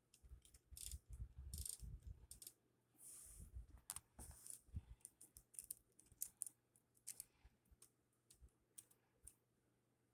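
Faint, scattered clicks and light rattles of plastic Lego Technic crane parts being handled, thinning out in the second half.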